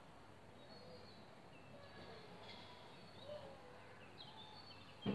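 Faint chirping and twittering of small birds, with a short bump right at the end.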